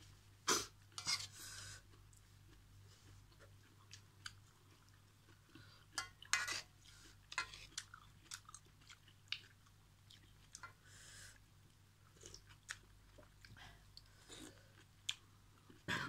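Close-up mouth sounds of someone chewing noodles and vegetables, with irregular short smacks and clicks every second or so.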